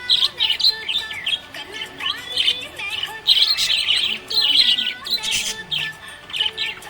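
Budgie chirping happily: a busy, rapid run of short, twisting chirps and warbles, one after another with hardly a pause.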